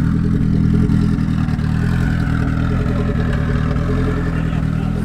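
A car engine running steadily at idle close by.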